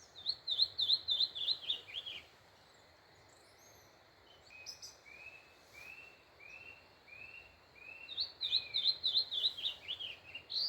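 A green-winged saltator (picharro) singing: two fast phrases of sharp, quickly repeated notes that slide down in pitch toward their end, one at the start and one near the end. Between them comes a slower run of softer, lower notes.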